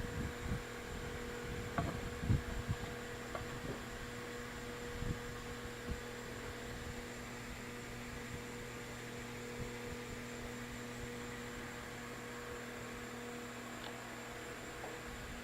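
Steady electrical hum, a low tone with higher overtones, with a few soft knocks and handling sounds in the first six seconds.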